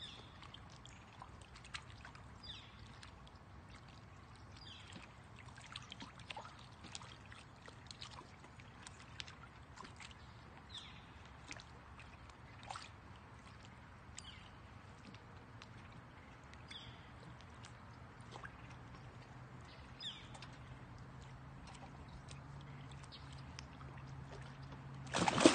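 Faint lapping and trickling of shallow water with small ticks and splashes, then about 25 seconds in a sudden loud splashing as a dog lunges into the water after a large fish.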